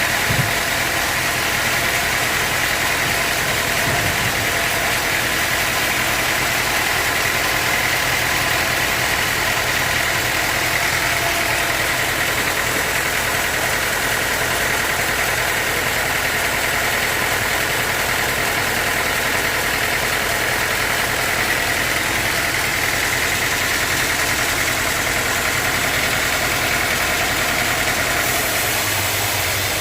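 Band sawmill running steadily: a continuous mechanical drone with a steady high whine.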